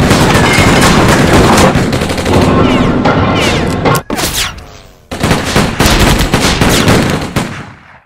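Dense, rapid gunfire, many shots overlapping, in two long bursts with a brief lull about four seconds in, fading out just before the end.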